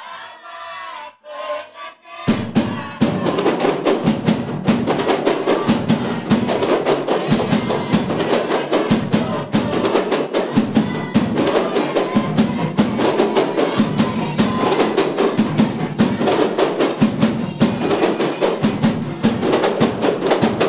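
A kompang ensemble of Malay frame drums, with a large cylindrical drum, beating a fast, steady interlocking rhythm. A lone voice chants for about the first two seconds, and then the drums come in together.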